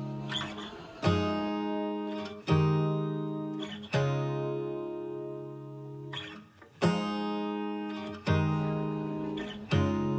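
Background music: an acoustic guitar strumming slow chords, each chord left to ring and fade before the next, roughly one every second and a half.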